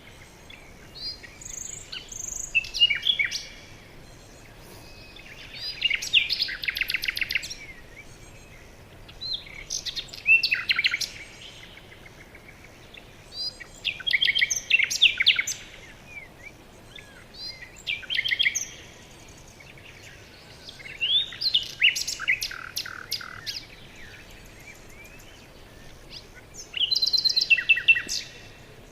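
A songbird singing repeated phrases of fast trilled, chirping notes, each about two seconds long, coming back every three to four seconds over a faint steady background hiss.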